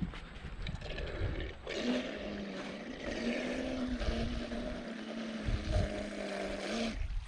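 Electric RC catamaran speedboat with a Turnigy brushless motor running out on the lake: a steady motor-and-propeller whine starts about two seconds in, steps up slightly in pitch, and cuts off about seven seconds in. Wind buffets the microphone throughout.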